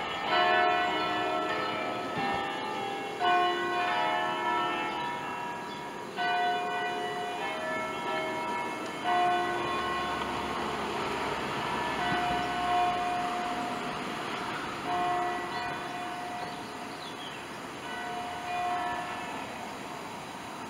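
Church bells of a five-bell peal hung on Ambrosian wheels, cast by Pruneri in 1887, swinging and ringing. Overlapping strokes of several bells hum on into one another, the strongest falling roughly every three seconds.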